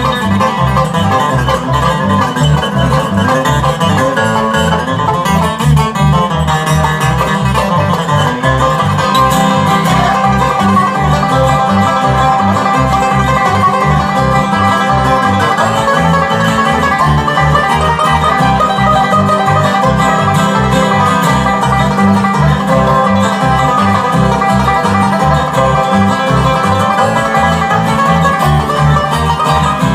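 Bluegrass instrumental led by banjo with guitar, over a steady low beat.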